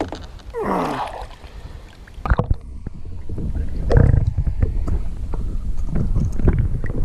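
Water sloshing and rumbling, heard muffled through a camera held underwater beside a kayak. A knock about two and a half seconds in marks where the muffled sound begins.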